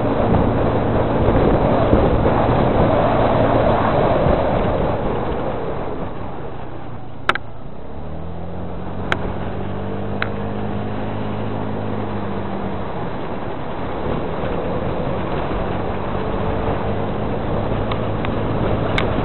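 A vehicle engine running steadily over a background rush of noise. A few sharp clicks come around seven to ten seconds in, and just after the first one the engine's pitch shifts.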